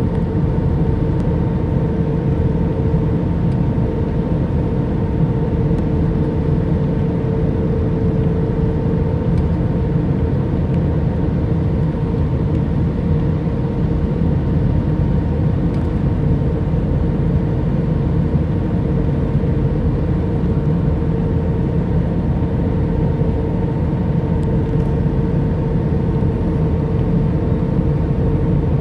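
Steady cabin noise of an Airbus A319 on final approach, heard from a window seat over the wing: a low, even drone of engines and airflow with a steady mid-pitched hum running through it.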